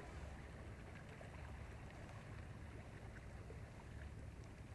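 Faint, steady outdoor rumble of wind and sea water, with a few faint ticks.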